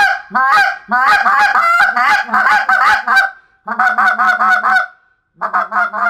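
Short-reed goose call blown in a fast run of honks, each note breaking over from low to high. There are two brief pauses between the runs.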